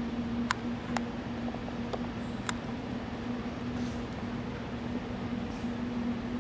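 Steady low room hum, like ventilation or electrical hum, with four sharp clicks in the first two and a half seconds.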